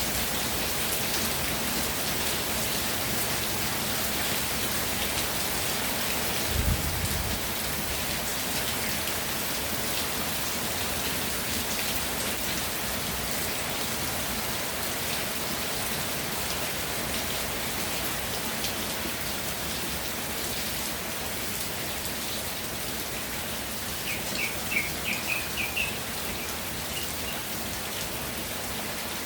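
Steady rain falling. There is a brief low thump about a quarter of the way in, and a bird gives a quick run of high chirps near the end.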